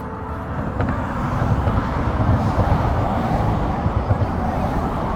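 Low outdoor rumble with irregular swells, growing louder over the first two seconds.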